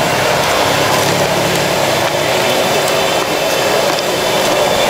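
Loud steady mechanical rushing noise, like a running motor or burner, holding level without a break.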